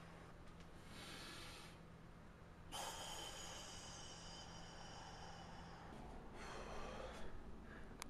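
A man breathing heavily through his nose while flexing: a short exhale about a second in, a long one of about three seconds in the middle, and another short one near the end, over a low steady room hum.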